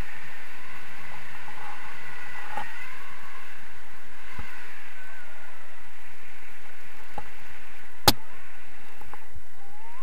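Steady rush of air past the camera during paraglider flight, with one sharp click about eight seconds in.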